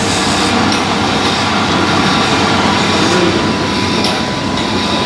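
Steady, dense mechanical running noise with a low hum underneath.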